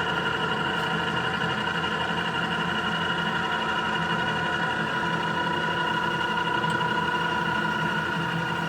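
Oliver 2085 tool grinder running steadily with its wheels spinning, a constant electric-motor hum with several steady whining tones.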